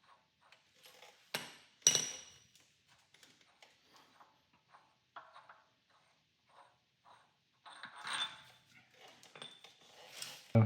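Two sharp metal-on-metal clinks with a short ring, the second louder, followed by scattered light clicks and handling noise of hand tools and engine parts on a workbench.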